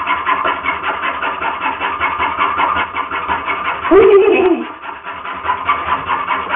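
A saw cutting through a wooden couch leg in rapid, regular strokes. About four seconds in, a brief loud cry whose pitch rises and then falls.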